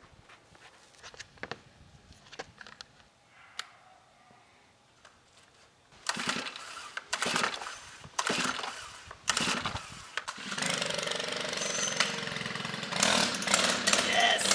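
Gas string trimmer being pull-started: several short pulls on the starter cord, then the engine catches about ten seconds in and keeps running, louder near the end.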